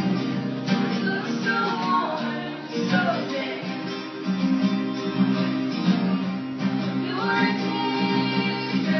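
Live acoustic music: two acoustic guitars played together, with some singing.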